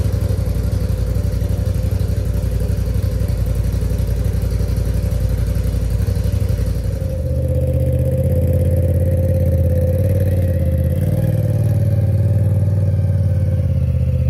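Polaris RZR Pro XP side-by-side's turbocharged twin-cylinder engine running steadily just after start-up; about halfway through, its note changes and grows heavier.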